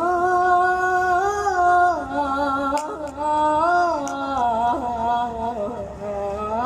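A child's voice singing an unaccompanied Husseini (Shia) lament, drawing out long held notes with wavering ornaments; the melody steps down a little after two seconds and slides lower near the end.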